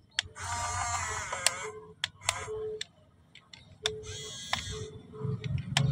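Huina 1550 RC excavator's electric motors and gearboxes whirring in short stop-start runs as the boom lifts and the bucket curls, with sharp clicks in between.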